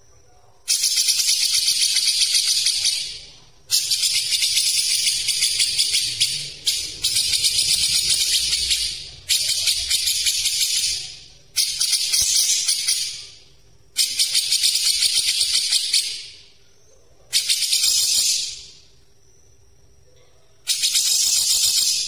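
Grey-cheeked bulbul (cucak jenggot) singing its fast, dense chattering song: about eight loud bursts of rapid rattling notes, each one to three seconds long, with short pauses between.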